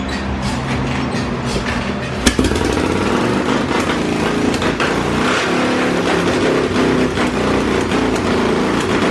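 1980 Harley-Davidson Shovelhead 80-inch V-twin running shortly after its first start. A sharp crack comes about two seconds in, after which the engine runs faster and a little louder.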